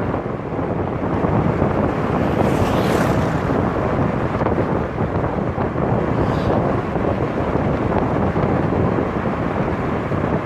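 Wind buffeting a microphone on the outside of a moving car, over steady road rumble, with two brief hissing swells of wind about a third and two-thirds of the way through.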